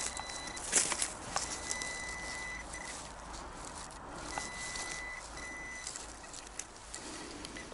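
Metal detector giving a steady high beep over a target: one beep held about a second near the two-second mark, then two more about four and a half and five and a half seconds in. Rustling and a few sharp knocks come in the first second or so.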